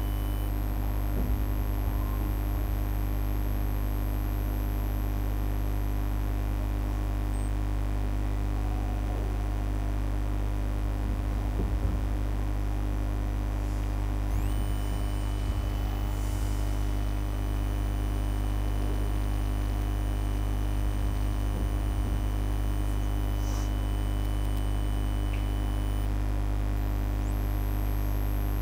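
Steady low electrical mains hum. Faint thin high-pitched tones sit above it, one of which comes in about halfway through.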